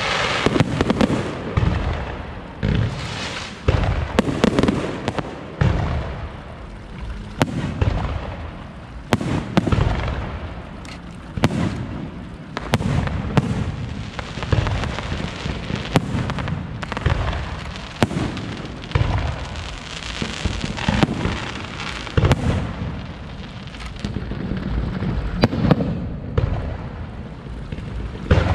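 Aerial fireworks shells bursting in quick, irregular succession, deep booms mixed with crackling.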